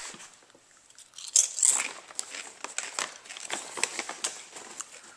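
Large bag of sweet potato chips crinkling and crackling as it is handled, in a quick run of sharp crackles that is loudest about a second and a half in.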